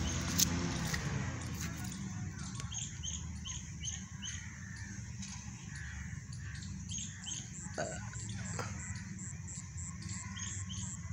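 Birds chirping outdoors: many short, high notes repeated over and over, over a steady low rumble, with two brief knocks near the end.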